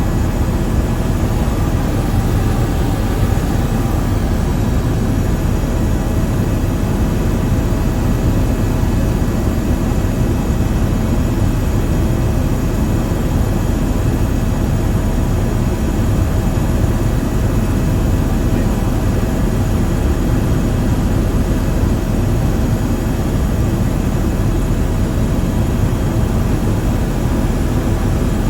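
Steady, loud drone of an aircraft's engine in flight, unchanging throughout, with a faint steady hum of tones above the deep noise.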